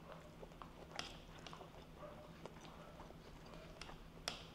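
Faint crunching and clicking of someone eating crispy-fried shrimp: scattered short crackles, the sharpest about a second in and near the end, over a low steady hum.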